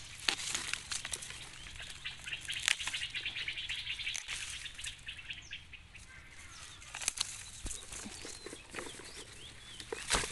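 Dry bamboo leaves and stalks rustling and crackling as young bamboo shoots are picked by hand, with many sharp clicks and crackles, busiest in the first half.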